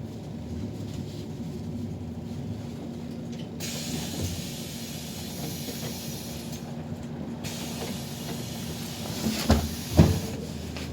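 City bus running, heard from inside: a steady low rumble, with a hiss for about four seconds in the middle, then two sharp thumps near the end, the loudest sounds.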